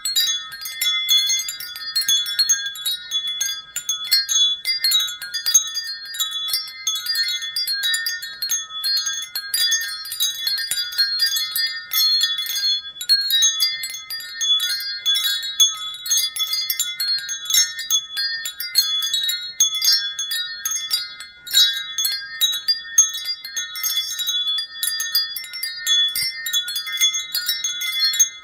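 Wind chimes ringing without a break: many high-pitched tones struck irregularly and ringing on over one another.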